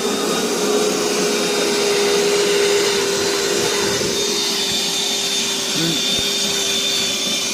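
Corded vacuum cleaner running steadily, with an even whine that holds one pitch while it hoovers the floor.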